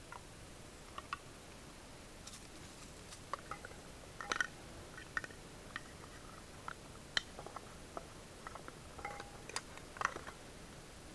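Small items of camp cooking gear being picked up and set down by hand: scattered light clicks and clinks, a few with a brief ring, the loudest about four seconds in and again about ten seconds in.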